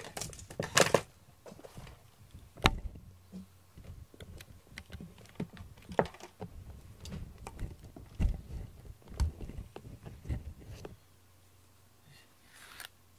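Wire slicker brush drawn through a cat's coat close to the microphone: irregular scratchy strokes and sharp clicks, which stop about eleven seconds in.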